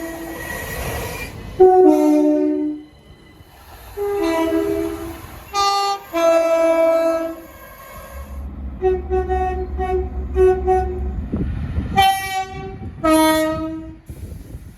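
Train horn sounding a string of chord-like blasts, long and short, with a run of quick short toots in the middle over the low rumble of the passing train.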